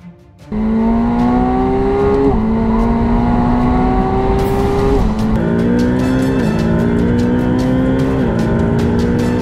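Twin-turbo V8 supercar engine under full-throttle acceleration, heard from inside the cabin. It comes in suddenly about half a second in, then climbs steadily in pitch and drops back at upshifts about four times.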